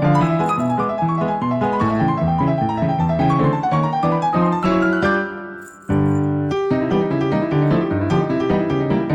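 Background piano music: a lively, busy run of notes that fades out briefly about five seconds in, then starts again.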